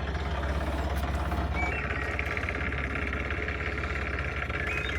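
Sailing yacht's inboard diesel engine idling with a steady low throb, a few short high chirps over it.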